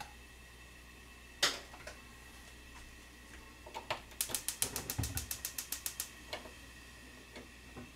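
Gas range's electric igniter clicking rapidly, about a dozen even clicks in under two seconds, with a low thump partway through. A single sharp click comes earlier, from the cap of a plastic cooking-oil jug being opened.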